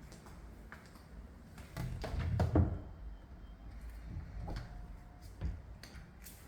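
A door being moved: a cluster of rattles and knocks loudest about two and a half seconds in, then a single knock about five and a half seconds in.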